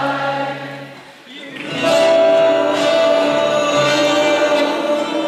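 Live 12-string acoustic guitar with a woman singing. The music fades to a brief lull about a second in, then guitar and a long held sung note come back in.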